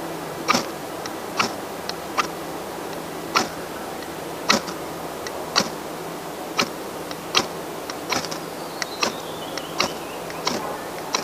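Ferrocerium fire-starter rod scraped with a metal striker over dry tinder to light a campfire: about a dozen short, sharp scrapes, roughly one a second.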